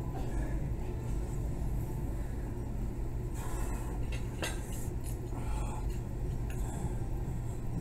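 Barbell and iron plates clinking lightly during a heavy deadlift set: a few short clinks about halfway through and once more a little later, over a steady low hum.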